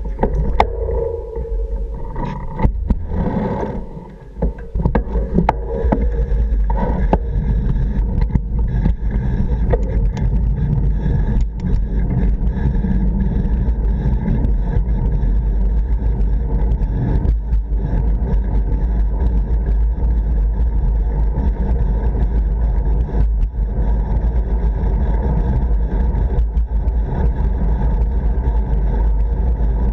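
Wind rumbling steadily over a bicycle handlebar camera's microphone while riding, mixed with tyre and road noise, with scattered sharp clicks. The rumble drops away briefly about four seconds in.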